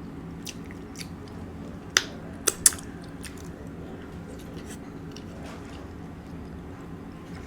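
Close-miked eating: chewing with scattered sharp clicks, the loudest three coming about two to three seconds in.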